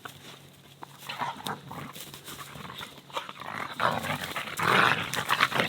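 Pet dogs vocalizing in rough bursts, getting louder from about four seconds in.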